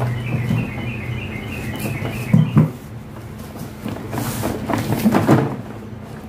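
Cardboard box flaps being pulled open and handled, with two sharp thumps about two and a half seconds in and scraping, rustling cardboard toward the end. A rapid high chirping runs through the first couple of seconds.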